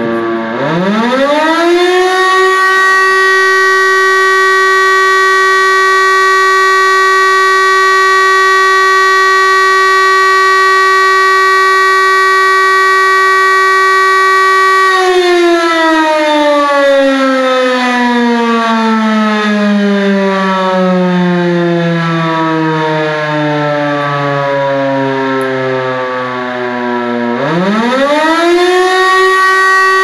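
Fire station siren winding up to a steady wail, held for about a dozen seconds, then cut and winding slowly down in a long falling wail. Near the end it winds up again to the same steady pitch.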